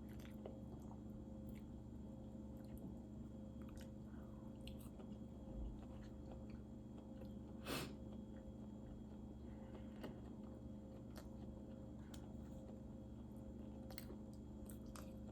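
Faint chewing and mouth smacks of a person eating soul food, with scattered sharp clicks and a stronger one about eight seconds in, over a low steady hum.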